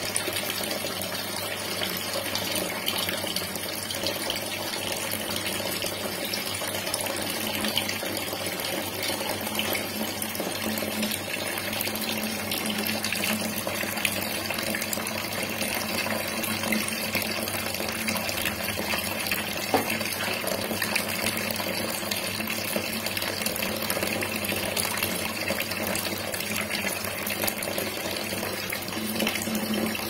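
Water running and splashing steadily in an aquarium setup, with no breaks.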